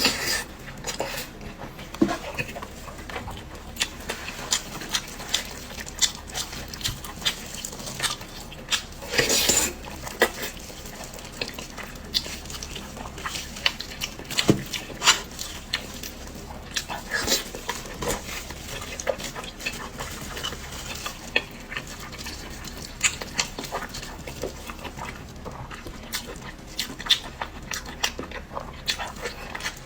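Close-miked eating: wet chewing and smacking mouth sounds with many irregular sharp clicks, some from utensils against a dish, and a longer noisy burst about nine seconds in.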